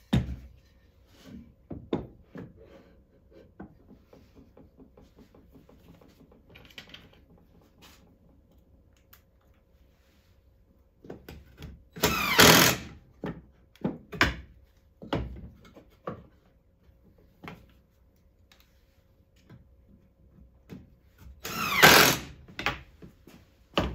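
Cordless driver running twice, about ten seconds apart, each run about a second long with its pitch sweeping, driving wood screws into a glued pine bench joint. Between the runs come light knocks and clicks of wood and tools being handled.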